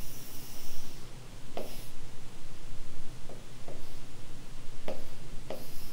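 Pen drawing on a whiteboard: faint strokes and a handful of light taps over low room hiss.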